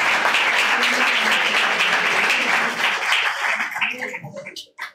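Audience applauding, thinning into a few scattered claps and dying out near the end.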